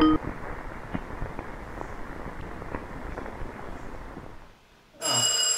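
Steady crackling noise with scattered sharp pops, fading out about four and a half seconds in. Just before the end, a bell starts ringing loudly.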